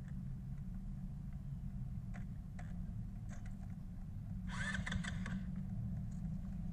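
Honda Ruckus scooter's swapped-in GY6 150cc engine running low and steady, with a short noisy burst about four and a half seconds in, as it is got going again after stalling.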